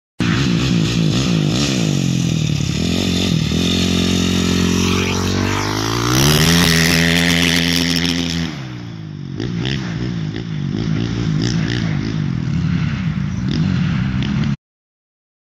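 KTM 450 SX motocross bike's single-cylinder four-stroke engine running as it is ridden. The revs climb about five seconds in, hold high for a couple of seconds and drop away around nine seconds. It then runs on unevenly until the sound cuts off suddenly near the end.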